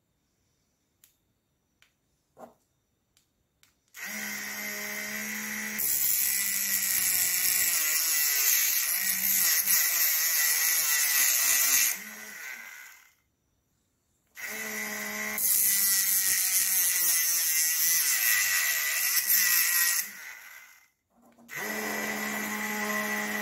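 Small motor of a homemade rechargeable mini grinder spinning a thin cutting disc, switched on three times. Each run is a steady high whirr that gets louder a second or two after it starts; a few light handling clicks come before the first run.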